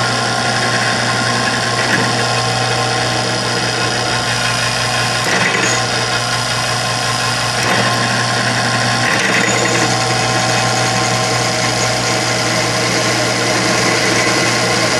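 Drill press running steadily as its bit cuts a lacing hole through a small oiled steel plate, a constant motor hum with a higher grinding note that swells briefly a few times as the bit bites.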